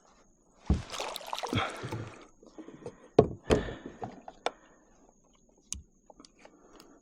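Water splashing and hollow knocks and thuds against a fishing kayak's hull as gear and body shift aboard. The splashing is heaviest early, two sharp thuds come near the middle, and small scattered clicks follow toward the end.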